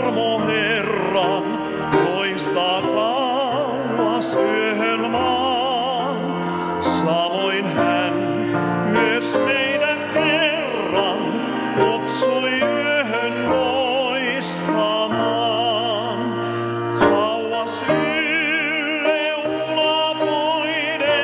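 A man singing a solo song in classical style with wide vibrato, accompanied on grand piano.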